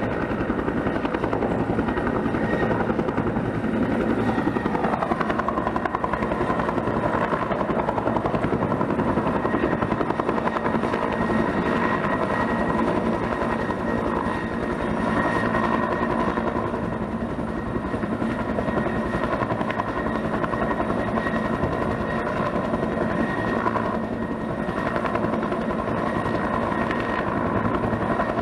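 Bell 212 helicopter running steadily: the fast, even beat of its two-blade main rotor over the steady whine of its twin turboshaft engines.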